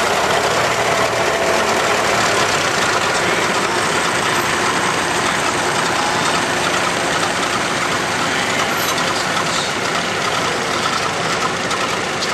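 Minneapolis-Moline 5-Star and Farmall M tractor engines running together under load, pulling a sled as a team; a loud, steady engine drone.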